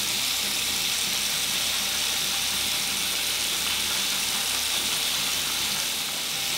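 Steady, even hiss with no distinct strokes or clicks.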